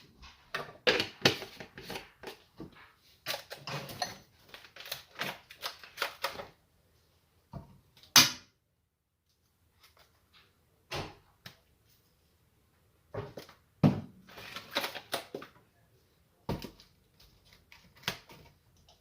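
Kitchen handling noises: quick runs of clicks, taps and light rattles from utensils and containers being handled while seasonings are added to a marinade, with a pause near the middle and a few sharper knocks.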